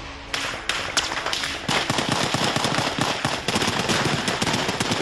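Rapid small-arms gunfire: many sharp shots in quick, irregular succession, starting about a third of a second in and growing much denser from about two seconds in.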